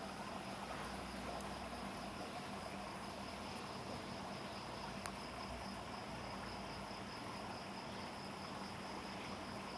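Crickets trilling steadily in the background, with a low steady hum underneath and a single faint click about five seconds in.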